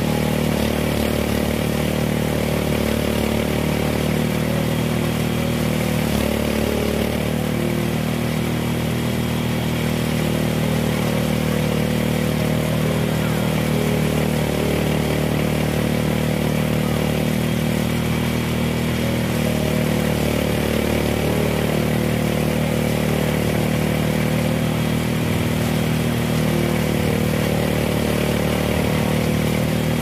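Small engine of a rice harvester running steadily at a constant speed.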